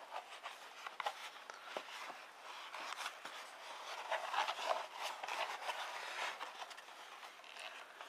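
Cardboard mailer box being pulled open and its flaps folded back by hand: an irregular run of scraping, creasing and rustling cardboard with small clicks.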